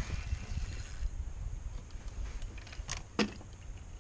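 Handling noise and low rumble on a body-worn action camera while a fish is played on a rod, with a light rustling hiss in the first second. Two sharp clicks come about three seconds in, the second a louder knock.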